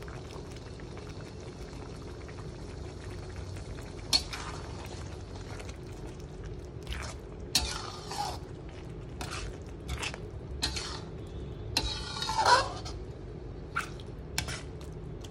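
Thick chilli sambal with beef lung simmering gently in a pan over low heat, a steady low bubbling hiss. From about four seconds in, a slotted spatula scrapes and knocks against the pan repeatedly as the sambal is stirred, the longest and loudest scrape near the end.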